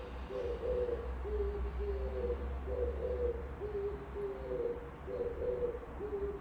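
Oriental turtle dove singing: a run of short, low coos, about two a second, stepping back and forth between two pitches, over a steady low hum.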